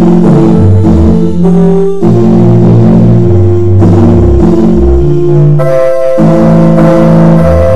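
Loud instrumental background music: held notes over a moving bass line.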